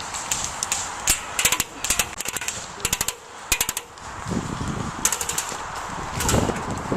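Airsoft guns firing several short rapid bursts, each a quick run of sharp clicks.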